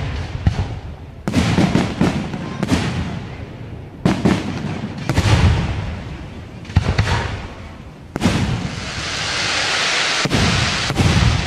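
Fireworks display: aerial shells bursting in loud booms every second or two. A long hissing crackle comes about eight seconds in and lasts about two seconds, then two more booms.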